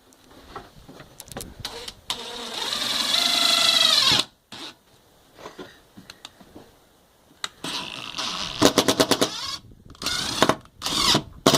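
Cordless impact driver driving self-tapping Tek screws through plastic into metal: the motor whines up in pitch for about two seconds and stops abruptly, then a few seconds later comes in short bursts of rapid hammering as the screws pull tight.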